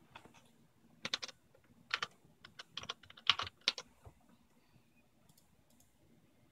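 Computer keyboard being typed on: an irregular run of key presses over a few seconds, stopping about four seconds in.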